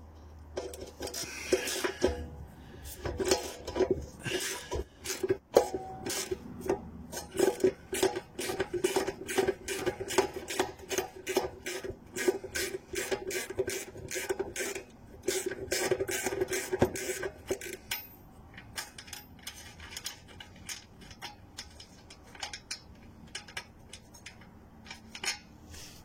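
Rapid metallic clicking of a 10 mm wrench as the small nuts holding an underbody shield are undone, about two or three clicks a second. The steady clicking stops about eighteen seconds in, leaving a few fainter clicks.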